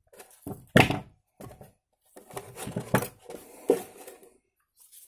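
Steel nails and a pair of pliers being handled and set down on a table, giving a series of irregular knocks and clatters. The loudest come about a second in and again around three seconds in.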